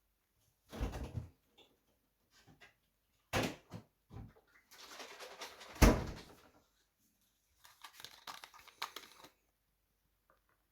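Irregular knocks and clatter of objects being handled in a small room, in several short clusters, with one loud thump about six seconds in.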